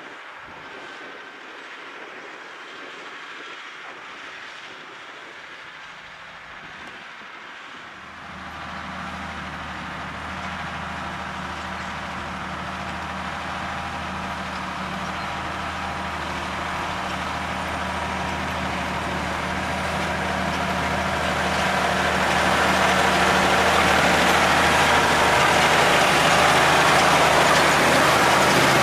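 Valtra tractor's diesel engine pulling a plough, drawing nearer. It is faint for the first several seconds, then a steady engine drone comes in and grows much louder over the next quarter-minute.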